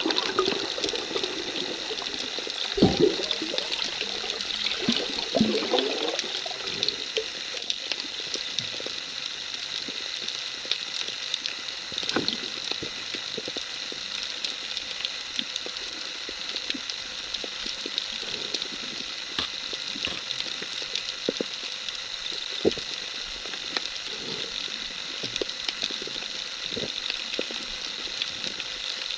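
Underwater ambience picked up by a submerged camera: a steady hiss dotted with faint scattered clicks, with a few low knocks and bubbling in the first several seconds.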